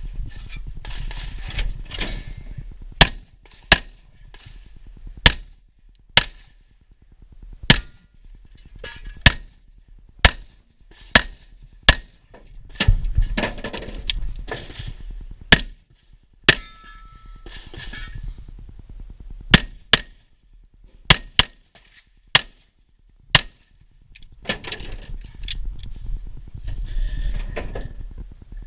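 .38 Super STI Trojan single-stack pistol firing single shots, mostly about a second apart, in several strings. Between the strings are stretches of rustling movement noise.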